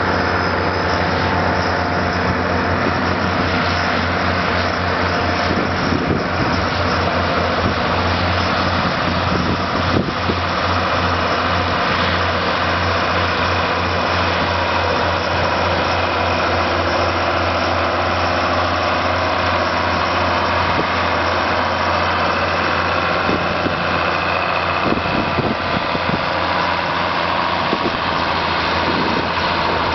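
International Harvester 1056XL tractor's diesel engine running steadily under load while pulling a plough through stubble.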